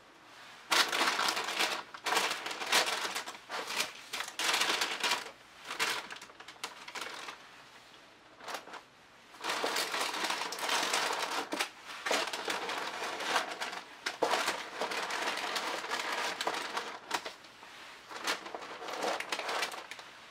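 Clear plastic sheeting crinkling and rustling in irregular bursts as it is handled and crumpled by gloved hands.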